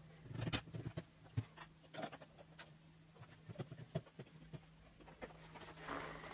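Faint, scattered clicks and taps of plastic parts being handled and pressed together: an LED bulb and its holder being fitted into a 3D-printed plastic clock body. A low steady hum runs underneath and stops about six seconds in.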